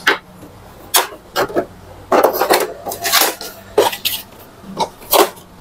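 Plastic casing of an Epson L120 inkjet printer being handled by hand: a string of sharp clicks and knocks, bunched together a couple of seconds in.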